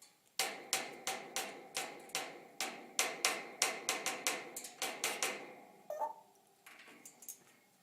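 An African grey parrot makes a rapid run of sharp knocking clicks, about three to four a second, each with a short ringing tone. The run stops about five seconds in, and a few faint taps follow near the end.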